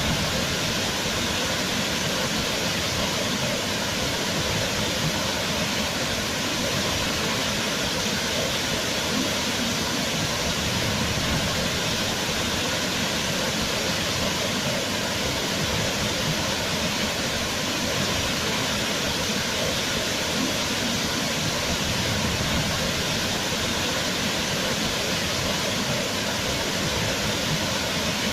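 Waterfall: water falling and rushing in a steady, even hiss that does not change.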